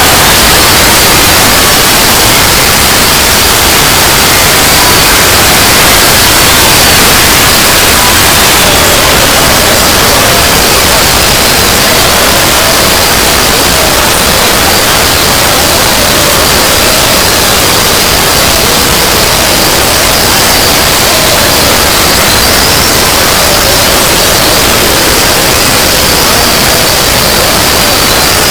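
Loud, steady static-like noise filling the whole range, with faint wavering tones buried beneath it: a heavily distorted, noise-saturated electronic sound effect.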